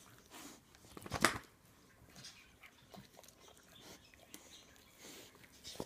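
A boxer and a bullmastiff puppy licking and mouthing at each other's faces: scattered wet licking and chewing sounds, with one louder, sharper sound about a second in.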